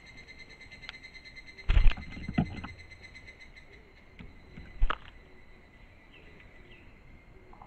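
A thrush splashing and fluttering at a small forest pool: a burst of wingbeats and splashing about two seconds in and another short flurry about five seconds in. A steady high-pitched tone runs underneath.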